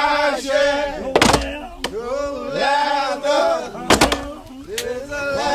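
Ducks quacking in rapid, rising-and-falling series while a flock circles. Two sharp, loud reports come about a second in and about four seconds in, typical of shotgun shots.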